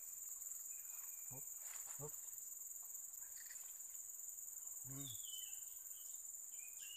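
Steady, high-pitched insect chorus from the surrounding forest, continuous throughout. A few short, low murmurs from a person's voice come in about one and a half, two and five seconds in, and a brief high chirp comes near the end.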